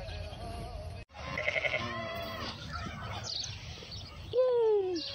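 Sheep bleating: a quavering bleat about a second and a half in, then a long, loud bleat that falls in pitch near the end. Background music plays briefly before a cut about a second in.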